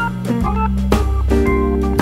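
Instrumental background music: held notes over a sustained bass line, with a light beat.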